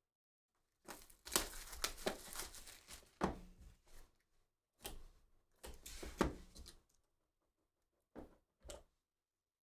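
Plastic shrink wrap being torn and crinkled off a trading-card hobby box, in a run of short rustling bursts, followed by two soft knocks near the end as the box is handled.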